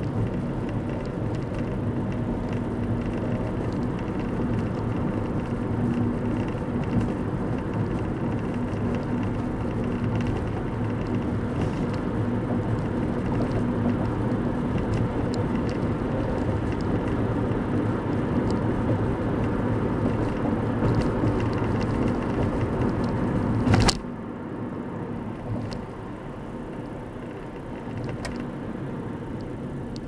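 Car driving, heard inside the cabin: steady tyre and engine rumble. A few seconds before the end there is a sharp click, and after it the rumble drops noticeably quieter.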